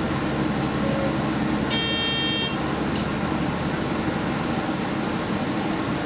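Diesel express train running along the track, heard inside its front car: a steady mix of engine hum and wheel-on-rail noise. About two seconds in, a short high electronic beep sounds for under a second.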